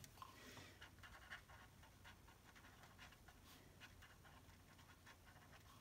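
Faint scratching of a pen writing on paper in short strokes.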